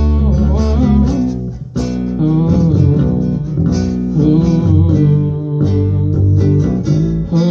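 A small band playing live, with strummed acoustic guitar and bass.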